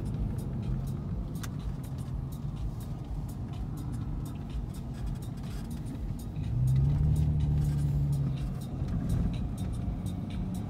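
Car engine and road noise heard from inside the cabin, a steady low rumble. About six and a half seconds in, the engine note steps up and grows louder for a couple of seconds under acceleration, then settles back, with faint scattered clicks throughout.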